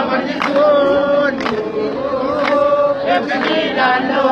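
A large crowd of demonstrators chanting in unison, voices holding sung notes together, with a sharp beat about once a second.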